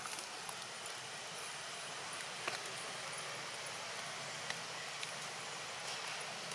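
Steady outdoor background hiss with a few faint, scattered clicks.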